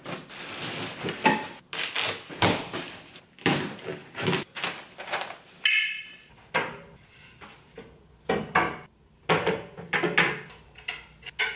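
Knocks, scrapes and rustles of a flat-pack computer desk being unboxed and put together: the cardboard box, styrofoam packing and desk frame parts handled and set down in quick succession. A short squeak about six seconds in.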